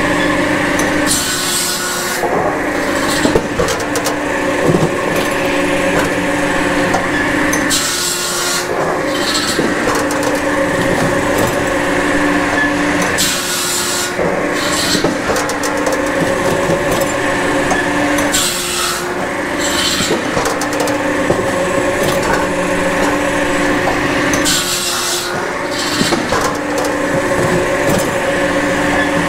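Japa 700 firewood processor running steadily, driven through its PTO by an electric three-phase power pack, its 700 mm circular saw blade cutting sycamore logs five times, about every six seconds, each cut a short rasp over the machine's steady drone.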